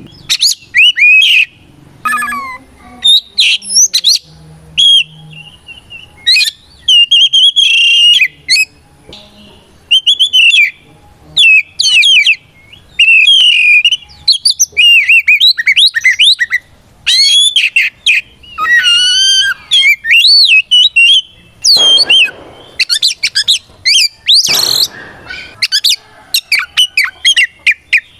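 Oriental magpie-robin (kacer) in full song: loud, fast, varied whistled phrases, slurs and trills with short pauses between them. Two harsh, raspy notes stand out a little after two-thirds of the way through.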